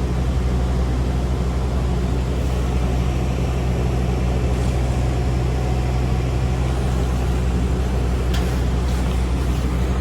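Steady low drone of a paratransit bus's engine and running gear, heard from inside the passenger cabin, with a brief click about eight seconds in.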